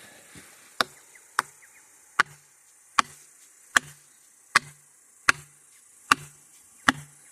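Felling wedges being driven into the back cut of a redwood with a hammer: about nine sharp, evenly spaced strikes, a little under one a second, each with a short ring. The wedges are being driven in to lift the tree toward its fall.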